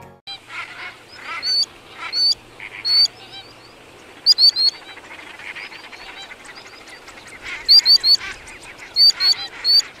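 A flock of greater flamingos calling: goose-like honking and gabbling, cut through by sharp high call notes that come in quick runs of two to four, busiest about four seconds in and in the last three seconds.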